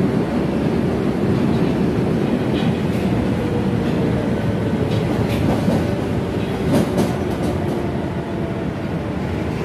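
Osaka Metro 20 series subway train running, a steady rumble of wheels on rail with faint steady tones from its Mitsubishi VVVF inverter-driven motors. There are a few short knocks around the middle, and it gets slightly quieter near the end.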